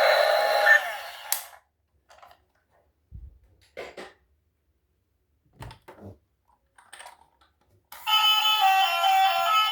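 A loud, dense sound cuts off about a second in, followed by a few faint, scattered knocks and clicks; music starts near the end.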